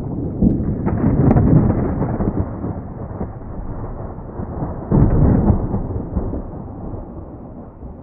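Deep rumbling boom-like sound that swells about a second in and again about five seconds in, then slowly fades out.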